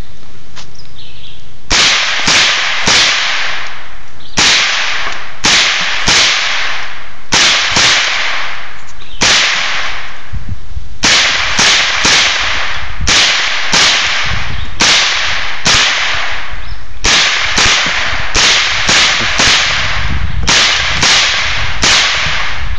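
Rifle fired rapidly in semi-automatic fashion: about thirty sharp shots in clusters of two to four, roughly half a second apart, each with a short echo. The shots stop when the magazine runs dry.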